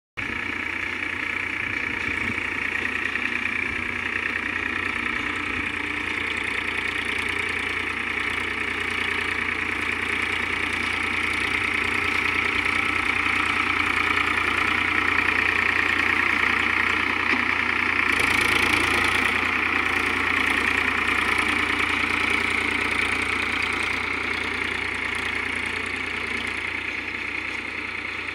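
Tractor engine running steadily while driving a Gomathi baler, the engine and baler machinery making a constant mechanical din. It swells briefly with a hissing rush about two-thirds of the way through.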